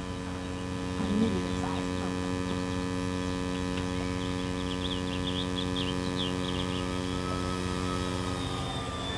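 A steady low hum with several evenly spaced overtones, unchanging throughout, with faint quick bird chirps about four to six seconds in.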